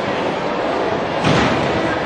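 A single solid thud about a second in: a gymnast landing a skill on the beam or floor. Under it runs the steady hubbub of a crowded gym hall.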